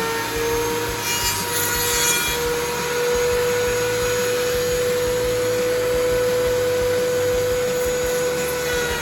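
Power planer running with a steady high-pitched whine and a rush of noise beneath it, as rough oak beams are fed through to even them.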